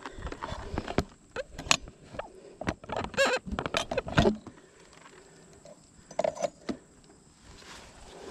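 Footsteps pushing through tall weeds and brush: scattered rustles and snapping stems, with a brief squeak about three seconds in.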